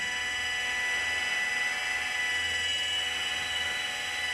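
The Pro-OX 5900-BT iron filter's control valve drive motor running with a steady high whine, turning the valve into its backwash cycle after a manual regeneration is started.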